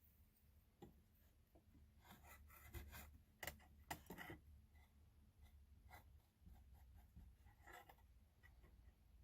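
Faint scratching and small ticks of a marking tool tracing an outline onto a piece of steel saw blade, in short strokes with pauses.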